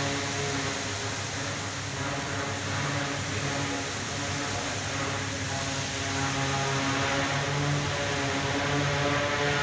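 A 2000 kVA generator set running steadily, a continuous machine hum with its engine drone.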